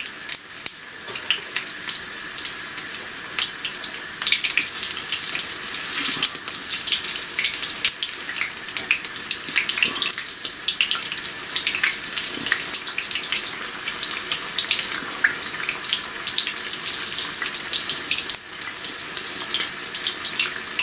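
Batter-coated green chilli pakoras deep-frying in hot oil in a wok: a steady, dense sizzle full of fine crackles. A utensil turns them in the oil about halfway through.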